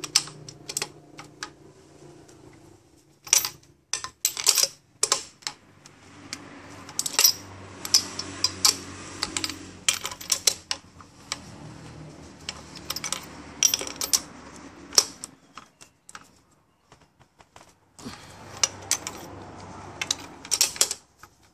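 Ratchet wrench and spark plug socket clicking and clinking in irregular quick runs as a spark plug is turned down and tightened in the cylinder head of a Kia Sportage 2.0 engine.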